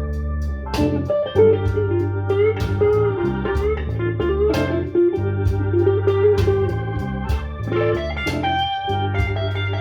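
Blues band recording playing an electric guitar solo with bent notes over bass and drums.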